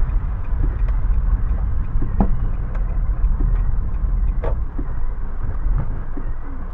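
Car cabin noise while driving in rain: a steady low engine and road rumble, with a few faint scattered taps.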